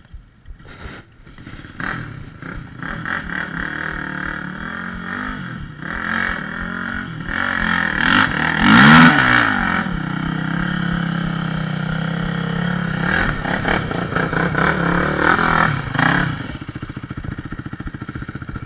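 Sport ATV engine revving hard as the quad claws up a muddy bank. The revs peak and swing up and down about halfway through, hold steady, then drop to an even idle near the end.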